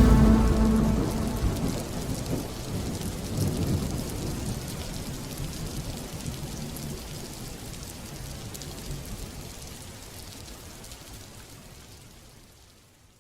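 Rain falling with low thunder rumbling, fading out slowly to silence near the end.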